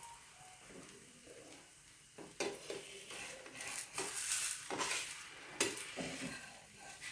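Chakli batter sizzling softly in an oiled kadhai. From about two seconds in, a metal utensil scrapes and clinks against the pan in a run of strokes.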